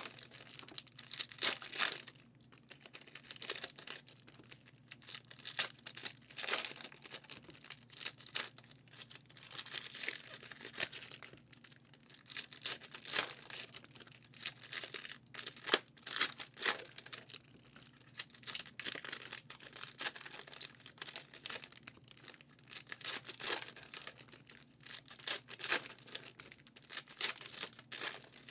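Foil trading-card packs being torn open one after another, the wrappers crinkling, in irregular short bursts.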